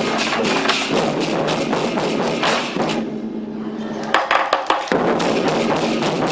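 Lion dance war drum ensemble playing: rapid big-drum beats mixed with clashing cymbals. About three seconds in the cymbals drop out for a moment, a handful of sharp single strikes follow, then the full drumming and cymbals resume.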